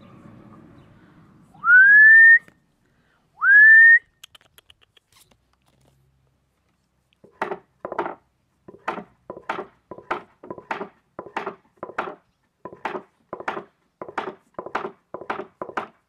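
Two loud whistles about a second and a half apart, each rising in pitch and then held briefly. From about seven seconds in comes a steady run of short scratchy strokes, about three a second.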